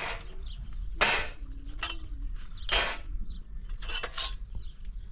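Objects being handled: a handful of short clinks and knocks, about a second apart, some with a brief ringing ring.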